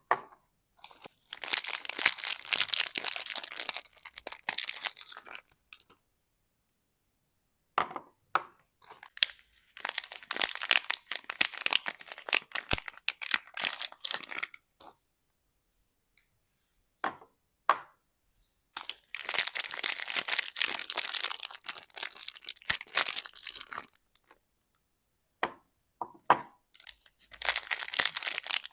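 Soap bar wrappers being torn open and crinkled by hand, in four bouts of a few seconds each separated by short pauses with a few light clicks and taps.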